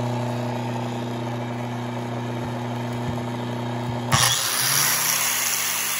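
Electric motor running off an inverter with a steady low hum. About four seconds in, an angle grinder with a flap disc switches on with a sudden jump in level, and a high, hissing whine takes over as the hum fades.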